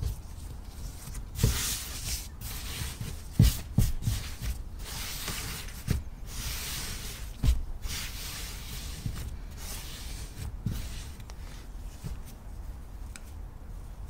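Hands working a sticky sourdough dough on a floured wooden board: the dough rubbing and sliding over the board, with several soft thumps as it is folded and pressed, quieter near the end.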